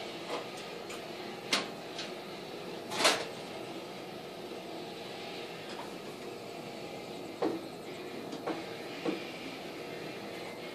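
Retractable patio screen rolling down and then back up, with a steady running sound and several sharp clicks and knocks; the loudest knock comes about three seconds in.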